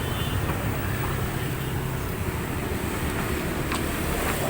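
Steady road traffic noise from a busy city road, with vehicles passing in a low continuous rumble and a few light clicks near the end.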